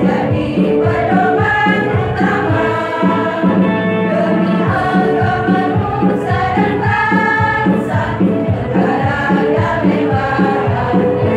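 Women's choir singing together in sustained, moving vocal lines.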